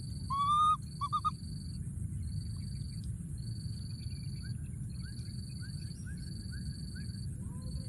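Baby macaque calling: one loud, high, slightly rising call just under a second in, followed at once by a short broken call.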